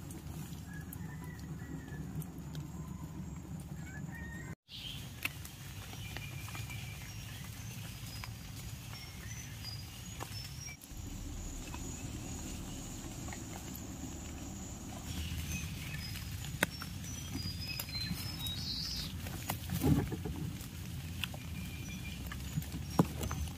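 Footsteps and rustling through forest undergrowth, with scattered snaps and knocks over a steady low background noise. Short bird chirps come in the second half.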